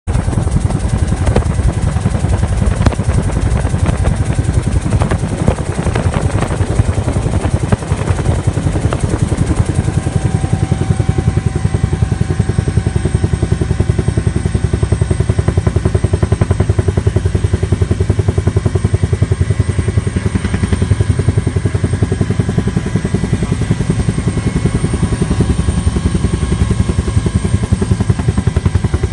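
Helicopter in flight heard from inside the cabin: a loud, steady, rapid rotor beat with a steady whine over it.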